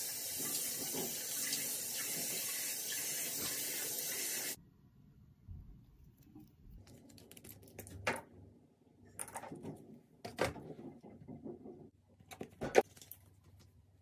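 Bathroom sink tap running steadily, then shut off abruptly about four and a half seconds in. Scattered soft clicks, taps and rustles follow as skincare products are handled, with one sharp click near the end.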